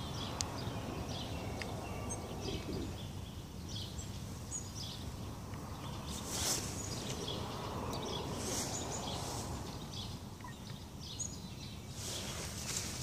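Birds chirping here and there over a steady low outdoor rumble, with a broad hiss swelling near the end.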